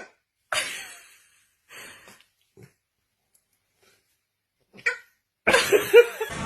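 A dog making a series of short breathy bursts, with a louder, longer one near the end.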